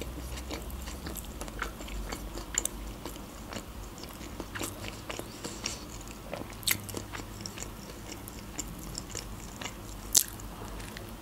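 Close-miked chewing of a mouthful of burger, with irregular wet mouth clicks and smacks; one sharper click about ten seconds in.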